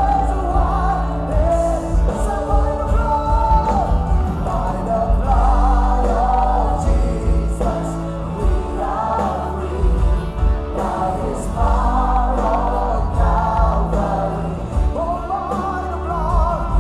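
Gospel worship song: a choir singing over accompanying music with a strong bass.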